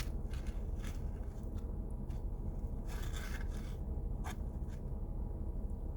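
A steady low rumble with scattered short rustles and clicks, the loudest a cluster around the middle.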